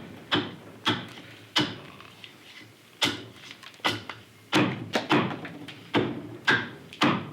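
Carving axe chopping into a block of green sycamore: about a dozen sharp chops, coming faster in the second half.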